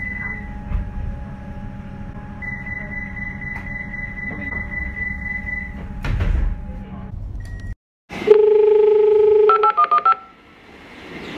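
Comeng train door chime: a steady high electronic tone sounding briefly, then again for about three seconds, over the low rumble of the train, with a thump shortly after. Then a station public-address attention chime: a loud steady tone for about a second, followed by a quick run of short beeps at changing pitches, before the platform announcement.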